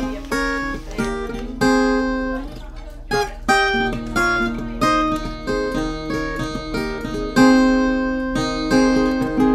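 Background music on acoustic guitar: a melody of plucked notes, one after another, with occasional strums.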